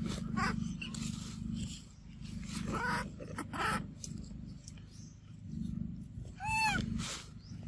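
Macaques calling: several short high squeals, the loudest a single arched squeal about six and a half seconds in, with rustling and a steady low hum underneath.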